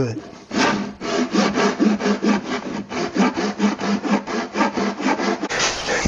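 Handsaw cutting a slot down through a plywood bird-feeder roof, in quick, even rasping strokes about five a second. The sawing stops about five and a half seconds in.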